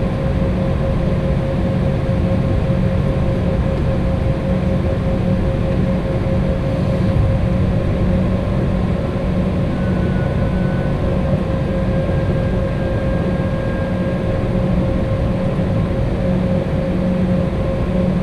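Cabin noise inside an Embraer E190 on the ground, its GE CF34 turbofan engines running at idle thrust. It is a steady hum and rush with a steady whine, and it holds level throughout with no spool-up.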